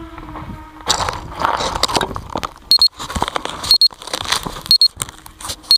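Rough scraping and crunching close to the crashed Walkera Rodeo FPV quadcopter's on-board microphone as it is picked up off the leaf litter and handled, starting about a second in. A short high beep repeats about once a second through the second half.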